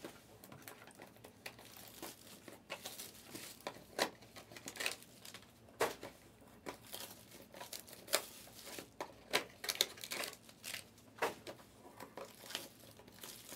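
Trading card packs in crinkly foil wrappers being handled and set down on a table: light, intermittent crinkling and rustling with scattered small clicks.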